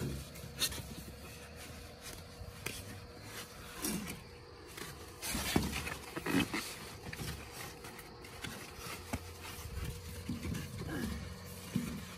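Foam pool noodles squeaking and rubbing against each other as they are bent and tied together, with short squeaky glides and scattered light knocks.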